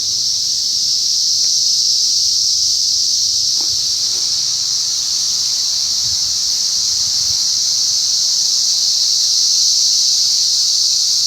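Cicada chorus: a steady, high-pitched buzz that holds without a break.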